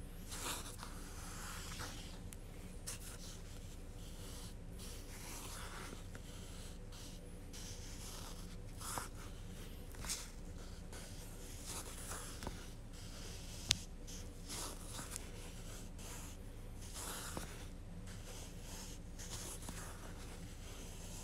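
Fingers rubbing and turning a ball of yarn and pulling out its strand close to the microphone: soft, intermittent rustling swishes over a low steady hum, with one sharp click about two-thirds of the way through.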